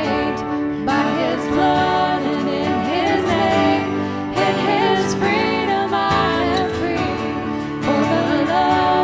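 Worship music: a voice singing over a band of instruments.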